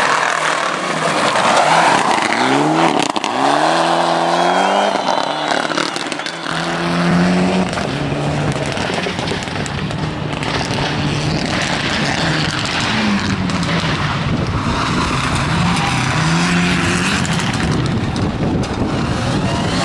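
Rally car engines revving hard as the cars accelerate out of tight corners. The pitch climbs and drops back again and again through gear changes, with some tyre squeal.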